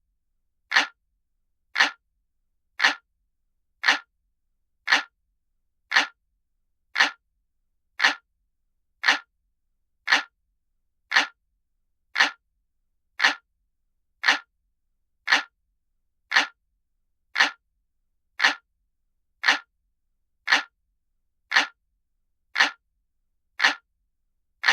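Looped recording of an analog clock ticking: one short, sharp tick about every second, evenly spaced, with silence between ticks.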